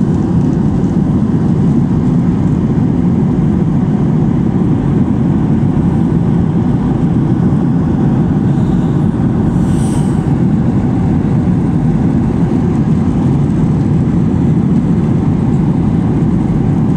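Steady cabin drone of a jet airliner in cruise flight, engine and airflow noise heard through the cabin, with a brief higher-pitched noise about ten seconds in.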